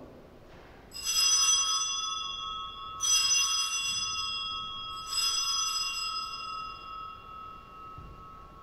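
Altar bell rung three times, about two seconds apart, each ring sounding on and slowly fading. It marks the elevation of the consecrated host at Mass.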